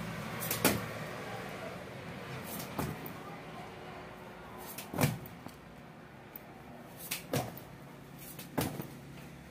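Sharp knocks and thumps every second or two, the loudest about half a second in and at about five seconds, from a man doing push-ups on a concrete floor, over a low steady hum.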